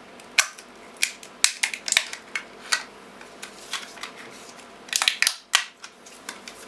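Plastic casing of a laptop battery pack being pried open: a series of sharp plastic clicks and snaps at irregular spacing as its clips let go, with a quick cluster of several about five seconds in.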